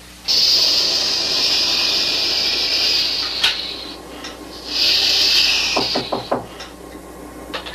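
Two bursts of loud hissing, like air or a spray being released: one about three seconds long, then a shorter one about a second later. A few light knocks fall between and after them.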